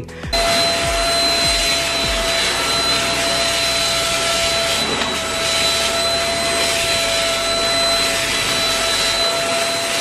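Perysmith Xtreme X10 vacuum cleaner running with its nozzle moved over carpet: a steady rush of air with a high motor whine.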